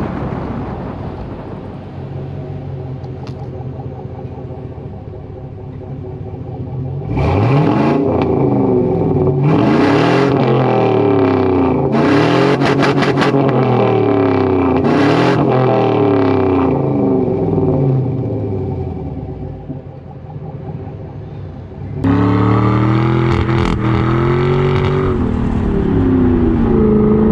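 6.0 L LQ4 V8 of a 1999 Chevy Silverado 2500 sounding through a Summit Racing dual-chamber muffler on a 3-inch Y-pipe exhaust while the truck is driven: a steady cruise, then hard accelerations where the pitch climbs and drops several times as it shifts, then easing off. About 22 seconds in, another loud burst of revving engine begins.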